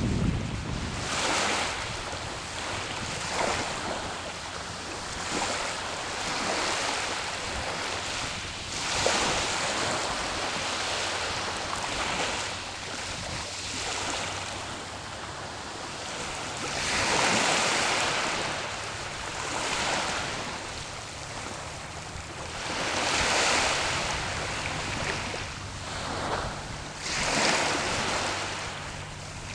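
Sea waves breaking and washing up the shore, a rushing wash that swells and fades every few seconds. The loudest surges come about two-thirds of the way through and again near the end.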